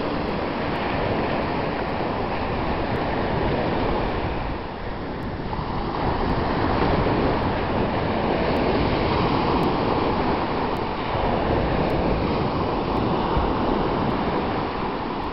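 Small sea waves breaking and washing up a sandy beach: a steady rush of surf that dips briefly about five seconds in, then swells again.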